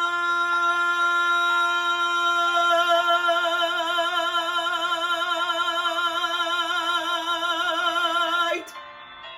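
A man singing one long held note to end the song, steady at first and then with a widening vibrato; the note stops suddenly about eight and a half seconds in, leaving only a soft backing accompaniment.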